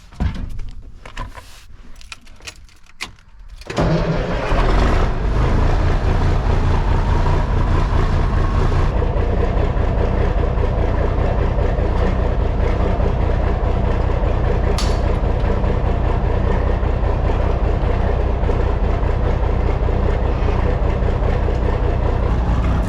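Semi tractor's diesel engine cranking for about four seconds, then catching and starting. It runs on at a steady idle.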